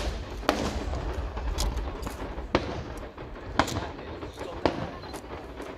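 Aerial fireworks going off: a string of sharp bangs about a second apart, over a constant low rumble and crackle.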